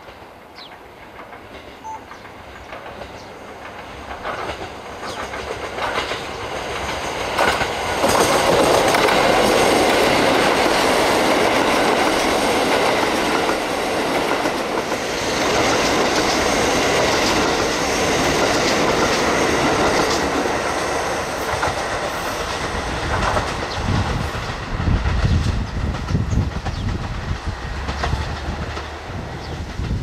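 KiHa 183 series diesel express train approaching and passing close by, its diesel engines running and its wheels clacking over the rail joints. It grows louder over the first several seconds and holds loud for about ten seconds, then eases into a low uneven rumble near the end.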